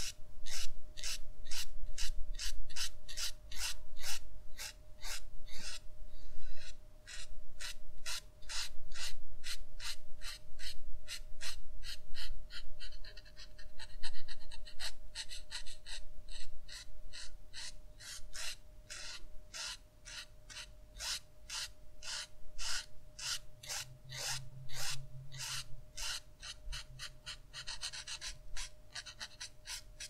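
Brush-tip marker stroking across paper in short, quick strokes, about three a second, which get softer in the last third.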